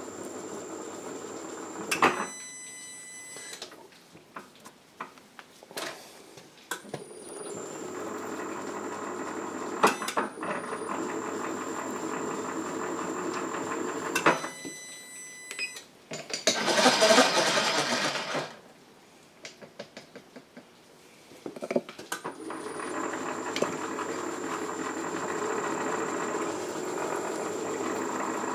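Milling machine spindle running as a tap held in its drill chuck power-taps drilled holes, stopping and restarting with clicks between holes. About 16 seconds in there is a louder rushing noise lasting about two seconds.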